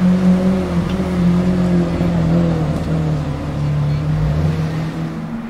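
Lamborghini Aventador LP750-4 SuperVeloce's V12, fitted with the factory race exhaust, running at low revs as the car cruises slowly past, a steady deep drone. Another car passes close by about four seconds in.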